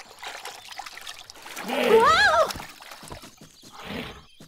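Water splashing and trickling as a pygmy hippo rises out of a pond and climbs onto the bank, a cartoon sound effect. A child's voice cries "Whoa!" about two seconds in, the loudest sound.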